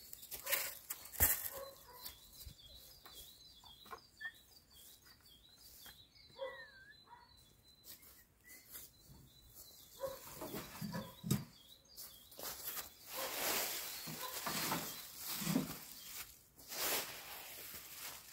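Dry fallen leaves scraped by a rake, then rustling loudly from about halfway through as they are gathered by hand and dropped into a wheelbarrow. Small birds chirp faintly in the quieter middle stretch.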